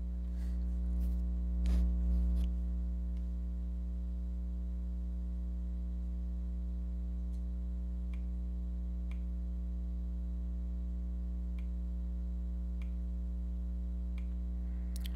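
Steady electrical mains hum with a stack of overtones, with about ten faint computer-mouse clicks scattered through it.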